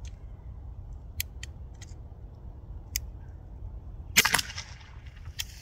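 Byrna CO2-powered less-lethal launcher shooting: a few sharp clicks, then a louder cluster of pops with a brief hiss after it about four seconds in, and one more click near the end.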